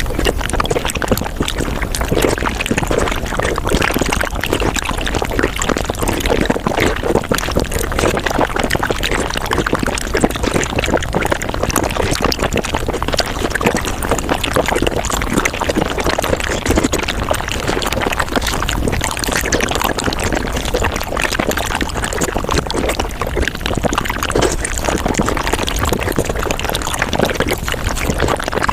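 Close-miked mukbang eating sounds of sago, sped up fivefold: a dense, unbroken stream of quick mouth clicks, smacks and slurps.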